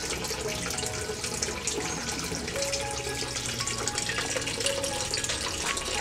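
Running water, steady and continuous, with faint short watery blips through it.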